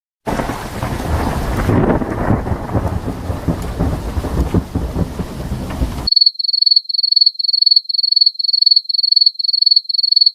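Thunderstorm sound effect: heavy rain with rumbling thunder for about six seconds, cutting off abruptly. It is followed by a cricket chirping steadily, about three high chirps a second.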